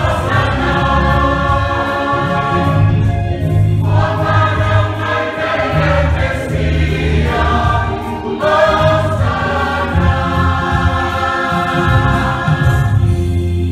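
Mixed church choir of men and women singing a hymn in harmony, in long phrases with short breaks between them. The voices stop near the end while low steady notes carry on.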